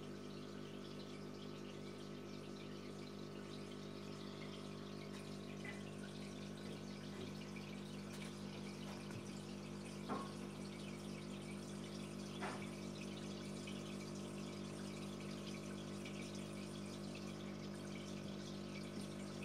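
Aquarium pump humming steadily under a soft wash of bubbling, trickling water, with two brief drips or plops about ten and twelve seconds in.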